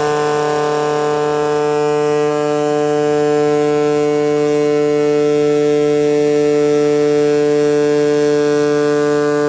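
CNC cutting machine running, giving a steady, unchanging buzzing hum.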